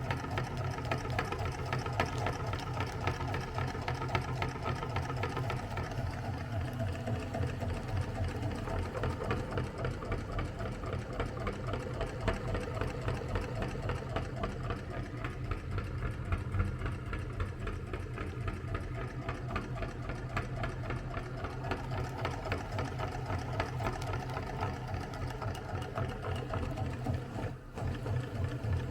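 Meat grinder running steadily as it grinds ice cream, a low motor hum with a fast rattle, dipping briefly near the end.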